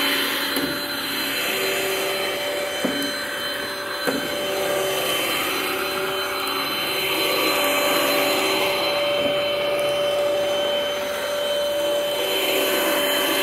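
2010 Sanitaire Multi-Purpose Pro commercial upright vacuum running steadily: a constant-pitch motor whine over the rush of air, with a couple of brief knocks about three and four seconds in.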